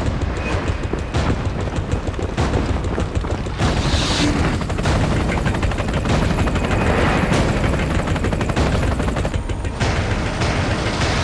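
Rapid automatic gunfire with booms, the shots crowding one on another.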